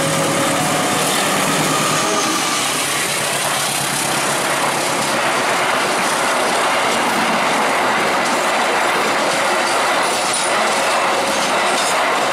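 Diesel-hauled passenger train passing close by at speed: a steady rush of noise as the coaches go past, with wheels clattering over the rails and a faint wheel squeal.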